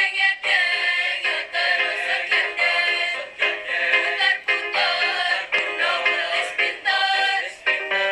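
Mixed school choir singing an Indonesian ethnic choral piece in harmony, in short, clipped phrases that stop and restart several times a second.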